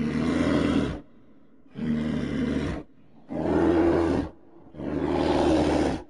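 Deep bear-like roars, a sound effect standing in for the extinct short-faced bear: four roars of about a second each, one every second and a half or so.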